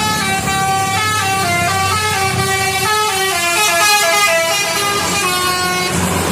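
Bus 'telolet' horn, a multi-tone musical air horn, playing a quick tune of many short notes that step up and down in pitch.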